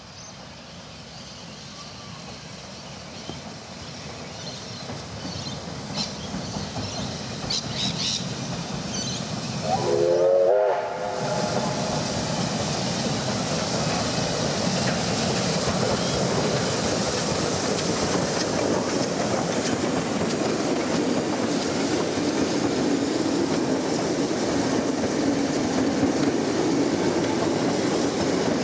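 Victorian Railways K-class steam train approaching, its rumble growing louder. About a third of the way through comes one short steam whistle blast, the loudest moment, and then the carriages pass close by with a steady rumble and wheel clatter.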